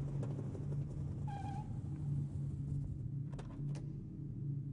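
Low ambient drone of a film soundtrack, a hum that swells and fades in slow, even pulses. About a second and a half in comes a brief high pitched cry or squeak. Two sharp clicks follow about three and a half seconds in.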